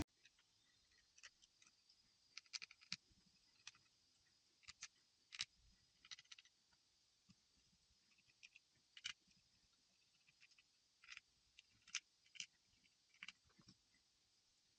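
Faint, irregular small clicks and ticks of small hand tools working on a smartphone's internals.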